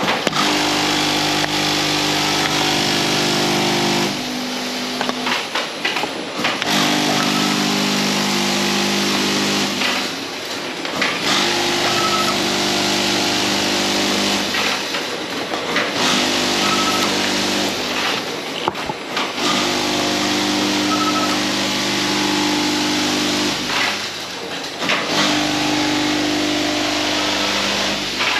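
Packaging line machinery running: a motor hum with several steady tones cuts in for about four seconds and drops out for a second or two, over and over, over a constant mechanical whir. A few short high beeps come in the middle.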